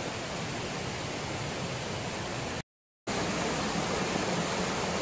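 Steady rushing of a nearby stream, the same on both sides of a half-second dropout to silence about halfway through.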